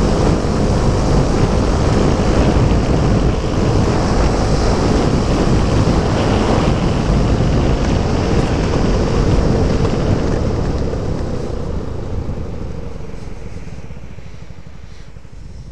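Wind and road noise rushing over the mic of a Suzuki Burgman 125 scooter riding at speed, with the scooter's running blended in. It fades steadily over the last few seconds as the scooter slows.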